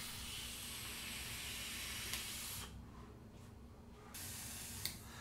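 Long draw on a vape's rebuildable dripping atomizer: air hissing through the heated coil for about two and a half seconds. After a short lull, a softer breathy hiss as the vapor cloud is blown out.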